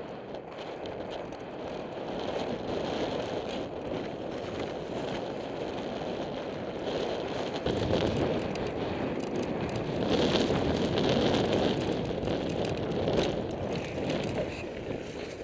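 Mountain bike riding fast down a dry dirt and gravel trail: tyres crunching and the bike clattering over the ground, with wind rushing on the helmet camera's microphone. It gets louder and deeper about eight seconds in.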